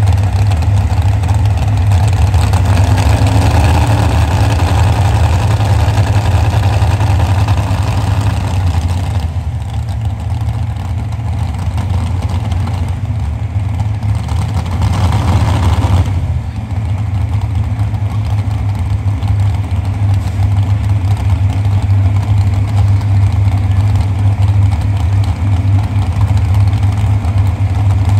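Modified pulling tractor's multiple V8 engines idling loud and steady, with a few short throttle blips. The tractor is at hook-up to the sled.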